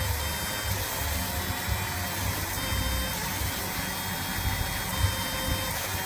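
Laser marking machine running as it engraves a stainless pistol slide: a steady low hum and hiss, with a faint high-pitched whine that starts and stops several times.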